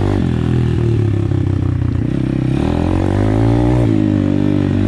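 Apollo RFZ pit bike's single-cylinder four-stroke engine running while riding, its revs rising and falling with the throttle. The revs climb a little after halfway, then fall off sharply about four seconds in.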